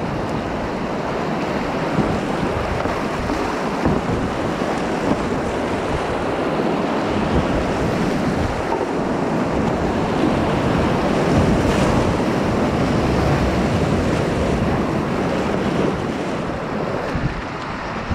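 Rushing whitewater of a rocky river rapid, heard from a kayak running it, with water washing around the boat. The rush grows louder through the middle as the boat passes the whitest stretch, then eases near the end.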